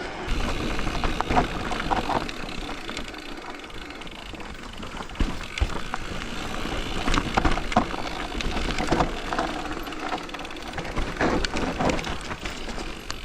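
Electric mountain bike riding down a rough trail: tyres rolling over dirt and roots, with many short knocks and rattles from the bike.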